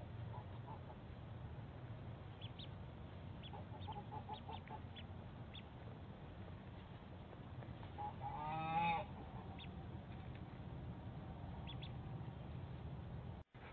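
A single loud waterfowl call, about a second long with a bending pitch, about eight seconds in. Before it come faint, short, high peeps from ducklings, over a steady low hum.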